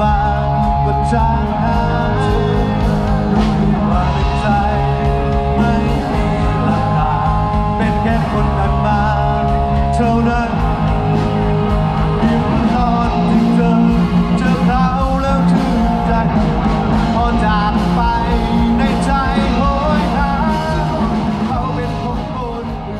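Rock-style music with a singing voice and guitar, fading out near the end.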